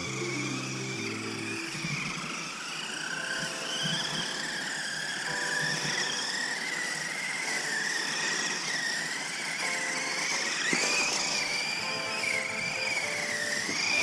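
Electric motor of a small 1:24-scale 4WD RC monster truck whining, its pitch wavering up and down as the throttle is worked.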